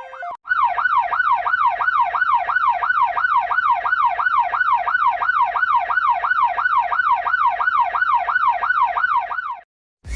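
Electronic ambulance siren sounding a fast yelp, its pitch sweeping up and down about three times a second. It starts about half a second in and cuts off abruptly near the end.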